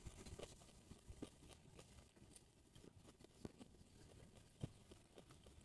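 Near silence with a few faint, soft clicks and smacks from a mouth chewing food.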